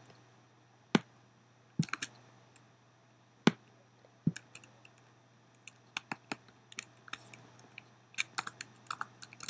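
Computer keyboard keystrokes: a few separate key presses, then a quicker run of typing from about six seconds in, as text with vertical bar separators is typed.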